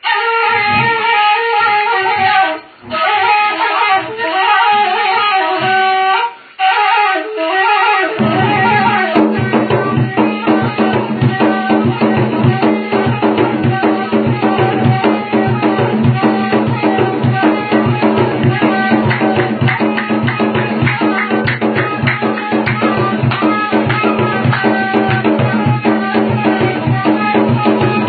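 Gasba reed flute playing free melodic phrases with short breath pauses, then from about eight seconds in a steady low drone and fast hand-drum beats join in a dense, driving rhythm.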